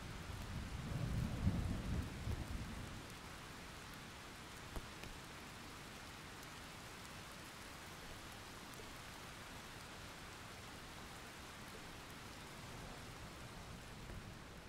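Steady rain, with a low rumble of thunder in the first few seconds.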